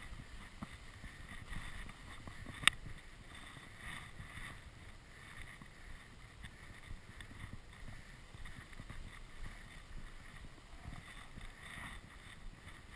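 Skis swishing through soft off-piste snow in a run of turns, swelling and easing with each turn over a low rumble. One sharp click about three seconds in.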